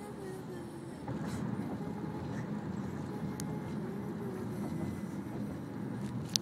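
Steady road and engine rumble of a moving car, heard from inside the cabin, a little louder after about a second.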